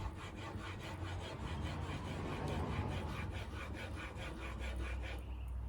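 Chisel rubbed back and forth on a wet fine diamond sharpening stone: a steady rhythm of rasping strokes, honing the bevel to a polished edge. The strokes stop shortly before the end.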